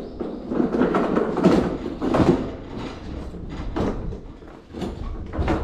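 Hand cart being wheeled over a pier and onto a metal boarding ramp, rattling and clattering with repeated irregular knocks, over a low steady rumble.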